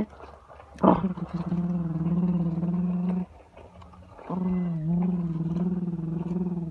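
Someone imitating a truck engine with their voice, making two long held, wavering engine notes of about two and a half seconds each, each starting with a sharp burst, with a short pause between them.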